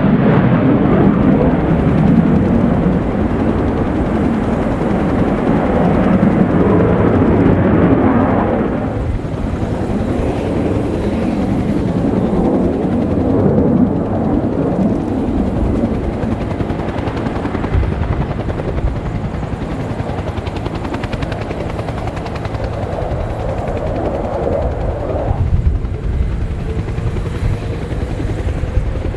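F-15 Eagle fighter's twin jet engines, a loud, rough, rumbling jet noise as it flies its display. The noise is loudest at first, drops back about a third of the way in, and eases again near the end.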